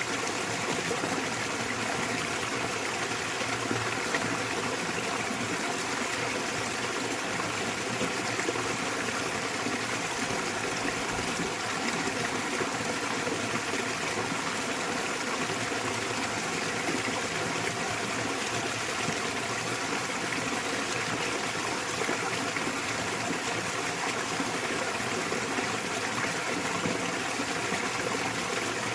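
Small waterfall pouring into a mountain stream: a steady, unbroken rush of splashing water with no pauses or changes.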